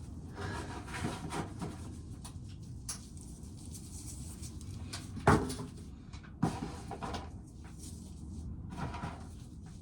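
Strong wind rumbling and buffeting a wooden corn crib door, which knocks sharply twice, about five and six and a half seconds in, amid scraping and rattling.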